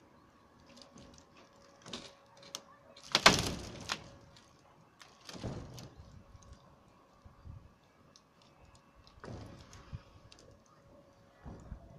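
Scrapes and knocks from boards and roofing sheets being shifted on a canopy roof. A loud, longer scrape comes about three seconds in, with smaller scrapes and clicks scattered through the rest.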